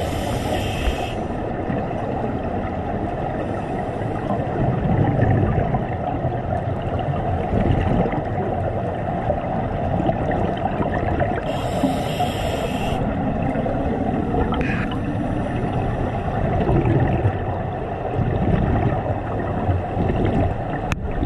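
Underwater sound of a scuba diver breathing through a regulator: a short hissing inhale at the start and again about 12 seconds in, with bubbling, gurgling exhalations in between over a steady low underwater rumble.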